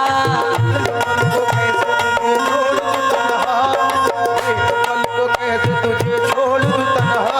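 Instrumental interlude of a qawwali-style song: tabla playing a steady rhythm under sustained melodic tones.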